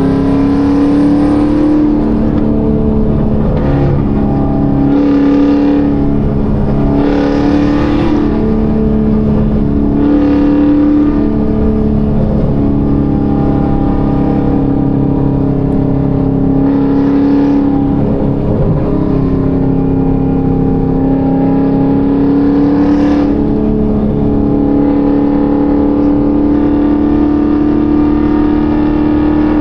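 Chevrolet Camaro ZL1's supercharged V8 pulling on the highway, heard from the open-top cabin. Its pitch climbs slowly and drops back several times as it shifts or eases off, with a few short rushes of wind noise.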